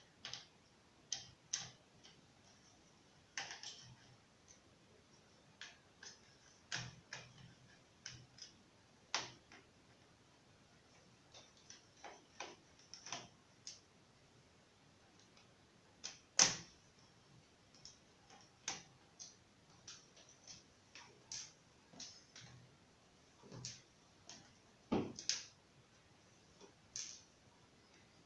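Irregular small clicks, taps and knocks from hands working on a Lenovo G505 laptop during a 2.5-inch hard drive swap, as parts and tools are handled. A sharper knock comes about halfway through and a few more near the end.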